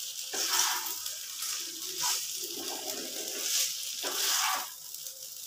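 Fried chicken pieces sizzling in sauce in a frying pan, with a spatula stirring and scraping through them in irregular strokes over a steady hiss.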